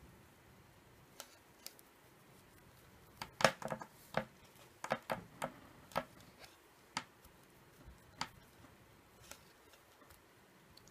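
Metal circular knitting needle tips clicking against each other as stitches are knit: irregular light clicks, bunched most densely between about three and six seconds in, with a few single clicks before and after.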